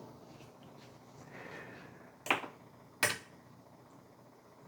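Two sharp mechanical clicks, about three-quarters of a second apart, from the controls of a 1975 Marantz 5420 cassette deck being pressed to start it playing.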